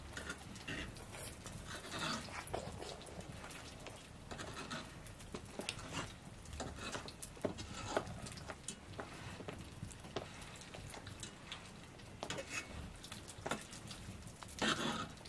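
A toddler's short breathy vocal noises, the loudest near the end, over scattered small clicks and crackles.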